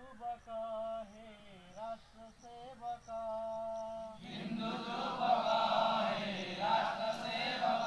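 One male voice sings a line of an Odia sangha geet (RSS group song), and about four seconds in a large group of men joins in, singing together and louder.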